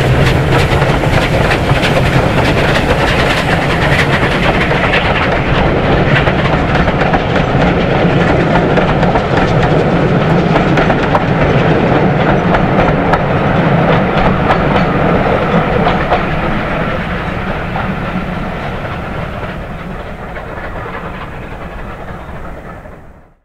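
Steam-hauled train passing: Bulleid West Country class pacific 34007 Wadebridge and its coaches, the wheels running over the track with many short clicks. The sound fades over the last several seconds as the train draws away, then cuts off.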